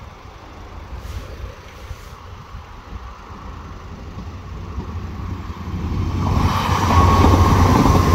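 A Northern Ireland Railways diesel multiple unit approaching and running over a level crossing: a low rumble that grows over about six seconds into a loud run of engine and wheels on rail, with a steady whine on top.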